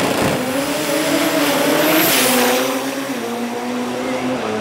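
Turbocharged Toyota 3RZ inline-four drag car making a pass down the strip at high rpm. The engine note is loud and fairly steady, with a small drop in pitch about three seconds in.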